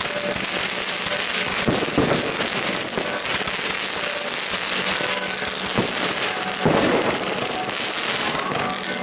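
Fireworks going off: many skyrockets with dense continuous crackling and popping, and louder bangs about two seconds in and again around seven seconds.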